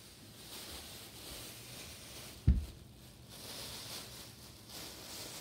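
Thin plastic bags rustling and crinkling in waves as they are shaken and scrunched by hand, with one sharp, dull thump about halfway through.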